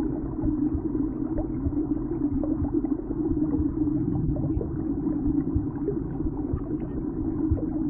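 A steady, muffled low rumble with a hum and scattered faint crackles: an ambient drone from an animation's soundtrack.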